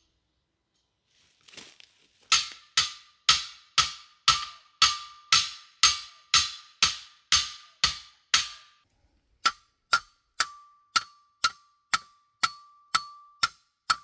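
Hammer blows striking metal, about two a second, each with a short ringing tone. After a brief pause near the middle, the blows come shorter and sharper.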